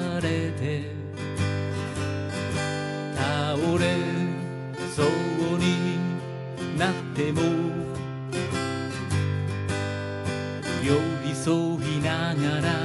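Acoustic guitar strummed in a steady rhythm, played live, with a man's singing voice over it at times.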